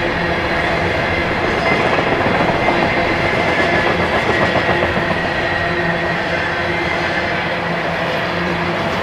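Freight train of tank cars rolling past, its steel wheels clattering over the rail joints in a steady rumble, a little louder in the first half.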